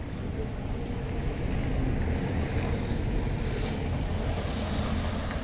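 Wind buffeting the microphone: a low rumbling noise that swells over the first two seconds and then holds.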